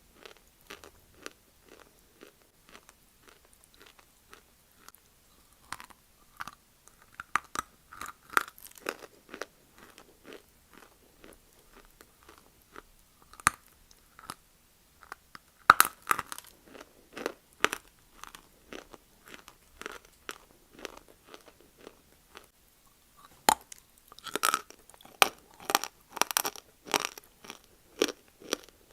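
A person chewing and crunching dry multani mitti (fuller's earth clay): a steady run of rapid chewing crunches, with a louder bite about halfway through and a cluster of loud crunches near the end.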